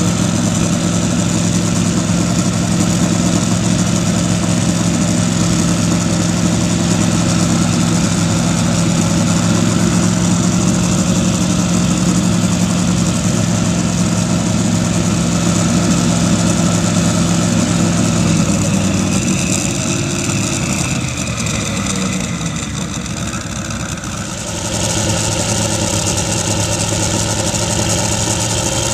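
Turbocharged Buick straight-eight engine in a land-speed streamliner idling steadily. Near the end the level dips and the pitch shifts for a few seconds before it runs on louder.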